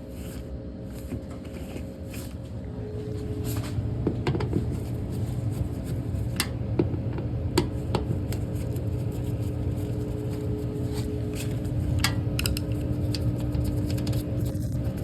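Lenox furnace running with a steady low hum that builds over the first few seconds, with a handful of sharp ticks and clicks scattered through it: the noise the owner is recording as a problem.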